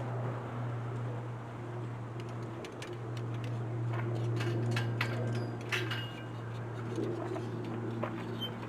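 Scattered light metallic clicks and clinks, as of hand tools and small engine parts being handled, over a steady low hum.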